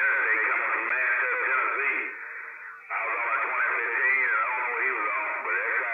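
Voice-like sounds coming through a narrow-band radio channel, too garbled to make out words. The signal fades for nearly a second about two seconds in, then comes back.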